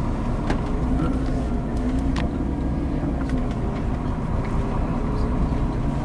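Tour coach's engine heard from inside the passenger cabin, pulling slowly round a tight hairpin bend, its pitch rising and falling gently as the driver works the throttle. A few light clicks, the clearest about two seconds in.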